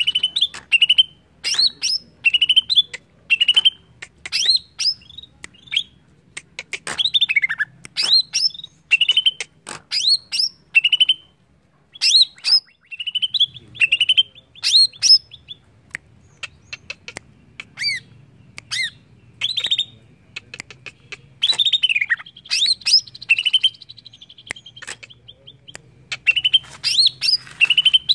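Male greater green leafbird (cucak ijo) singing: a string of sharp, whistled notes that sweep up and down, about one phrase a second. The song pauses briefly near the middle.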